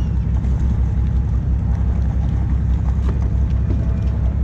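Fishing boat's engine running steadily: a loud, low drone with an even throb, with a few faint clicks on top.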